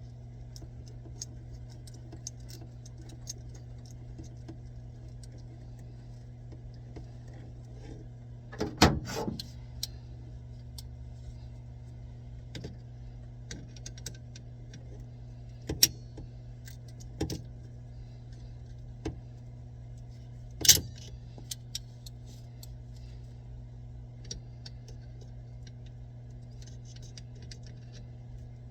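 Scattered metallic clinks and knocks of plumbing work, over a steady low hum. The loudest are a brief rattling cluster about a third of the way in and a single sharp knock about two-thirds in.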